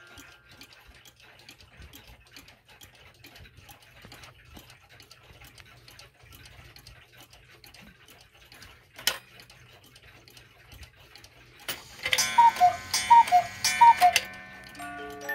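Mechanical clocks ticking faintly and steadily, with one sharp click about nine seconds in. Near the end a cuckoo clock calls three times, each a two-note falling cuckoo, among other ringing chime tones.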